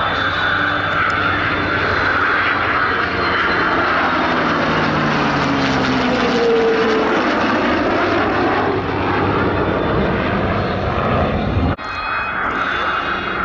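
Military aircraft flying past at an airshow: a loud, steady engine noise whose tones slide down in pitch about five to seven seconds in as the aircraft passes.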